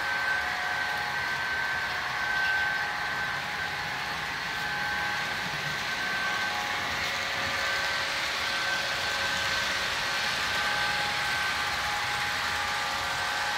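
Model freight train of weighted cars rolling along the layout track: a steady rolling hiss of wheels on rail, with a few thin steady tones that fade in and out.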